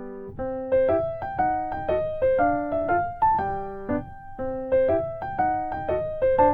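Background music: a bouncy, playful piano melody of short notes over a light rhythmic accompaniment.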